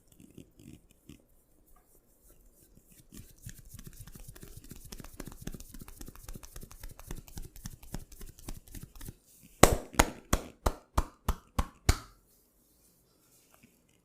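Massage by hand: quick rhythmic strokes on skin, about five a second, then about ten loud, sharp slaps in two seconds of percussive tapping, which stop abruptly.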